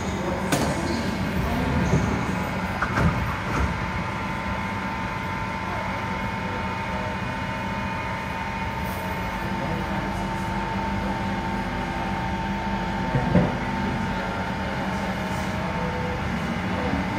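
Inside a C151 MRT train car: a steady hum from the train's equipment, broken by a few knocks, the sharpest about 13 seconds in. Near the end a whine starts to rise in pitch as the traction motors begin to pull the train away.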